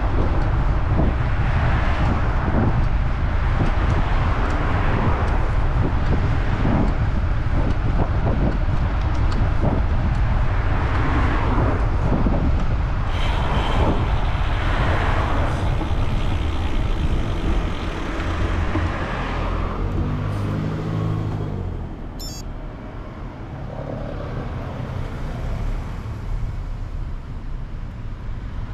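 Road traffic on a highway heard from a moving road bike: vehicles pass one after another, each swelling and fading, over a steady wind rumble on the microphone. About two-thirds through it quietens, and a vehicle engine hums briefly at a low, steady pitch.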